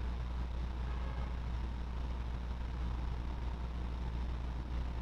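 Steady low hum with a faint thin whine above it, unchanging throughout.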